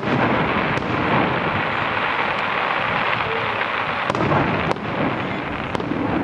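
Fireworks display: a dense, continuous rushing crackle with several sharp bangs at irregular intervals.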